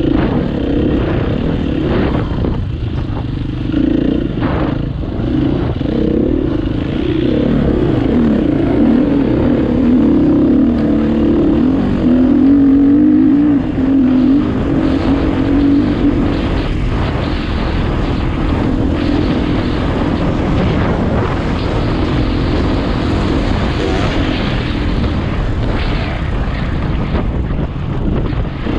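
Single-cylinder four-stroke engine of a KTM EXC 250 F enduro motorcycle running under load, its note rising and falling continuously as the throttle is worked through the ride, with occasional knocks.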